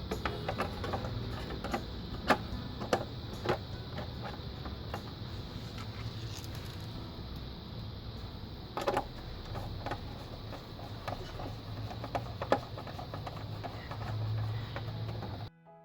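Irregular small clicks and taps of computer parts and tools being handled on a workbench, a few louder knocks among them, over a steady low hum. The sound cuts off suddenly near the end.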